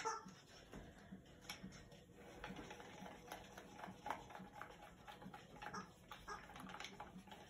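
Faint, irregular light clicking and tapping of a stir stick against the sides of a plastic cup as acrylic paint is stirred.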